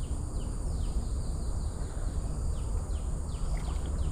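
Outdoor ambience of a steady high insect drone with a bird repeating a short falling chirp about three times a second, pausing briefly in the middle, over a low rumble.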